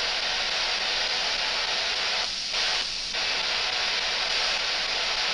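S-Box spirit box scanning through radio frequencies, giving a steady hiss of static between stations, with two brief dips in the hiss a little past halfway.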